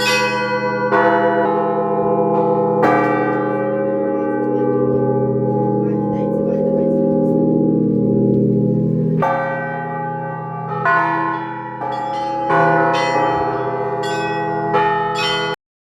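Orthodox cathedral bells rung by hand: several bells of different pitches struck at irregular intervals, with one long ring-out in the middle and quicker strikes after it. The sound cuts off abruptly near the end.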